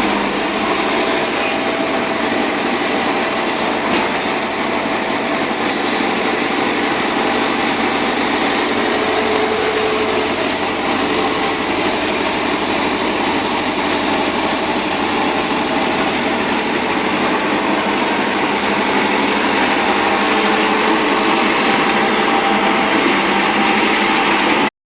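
Tata Hitachi 210 excavator's diesel engine running steadily under load, a continuous drone with a mechanical whine over it, cutting off abruptly near the end.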